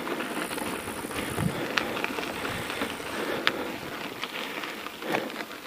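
Bicycle tyres rolling over sand and loose ground, a steady crunching hiss broken by a few sharp clicks and knocks from the bike.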